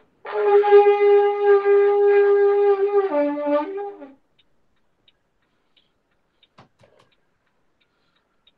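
A shofar blast: one long, steady note that drops to a lower pitch near the end and stops about four seconds in. It is heard through a video call.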